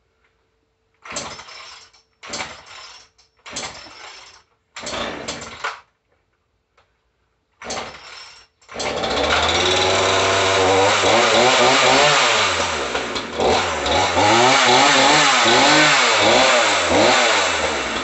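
Gasoline two-stroke chainsaw pull-started with five short pulls on the starter cord. It catches about nine seconds in, then runs loud with the throttle blipped up and down over and over.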